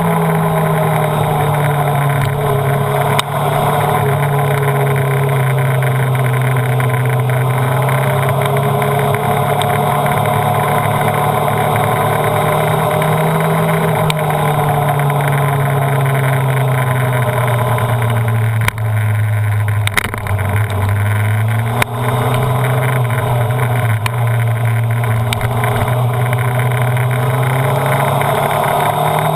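Honda CBR929RR's inline-four engine pulling at speed on track, its pitch slowly rising and falling with throttle and gear changes. Its pitch dips lower about two-thirds through, then climbs again. A steady rush of wind runs underneath.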